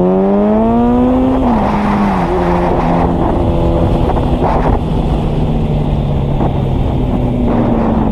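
Motorcycle engine pulling hard with its pitch rising, then an upshift about a second and a half in drops the revs. After that it runs at a steady pitch under wind rush, easing off slightly near the end.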